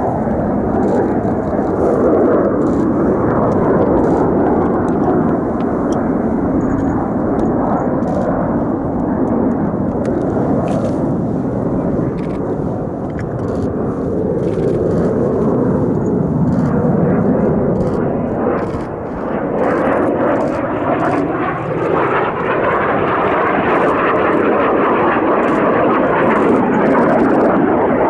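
Kawasaki T-4 jet trainers of the Blue Impulse display team flying overhead: continuous loud jet engine noise that slowly swells and eases, growing brighter after about twenty seconds as the jets come closer.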